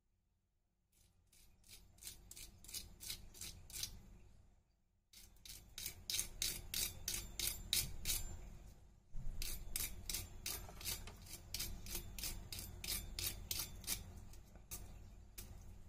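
Fork tines scraping across the crisp cornflake coating of a fried baby corn piece: dry, crackling rasps about four a second, in three spells with short breaks about four and nine seconds in. The crackle is the sign of a fully crisp, golden-fried crust.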